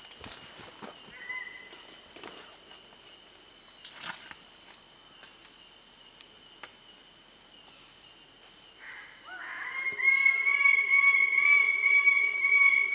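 A steady high-pitched insect drone, with a few faint short calls. About ten seconds in, a much louder, steady pitched drone starts with a brief rise and keeps going.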